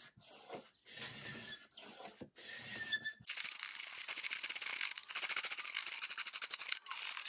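Hand scraper scraping old paint and finish off the wooden top of a credenza. A few separate faint scrapes come first, then from about three seconds in a steady, rapid scratchy scraping.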